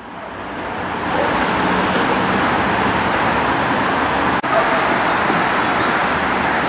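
Steady road-traffic noise fading in over the first second, with a brief dropout about four and a half seconds in.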